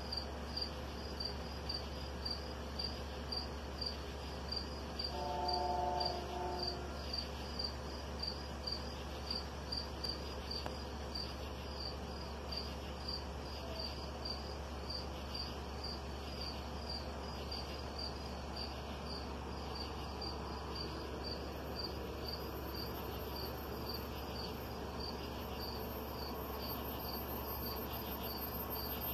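Night insects chirping in a steady, even rhythm of high pulses, over a low steady hum.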